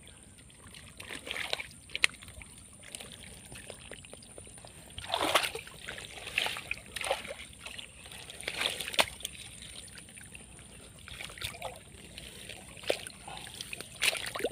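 Shallow swamp water splashing and sloshing in scattered short bursts as a sunken fishing set line is hauled up with a swamp eel hooked on it. A faint steady high whine runs under it.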